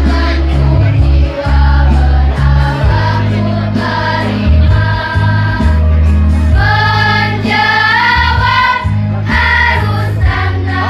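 School choir singing in unison over an accompaniment with low bass notes that change about every second.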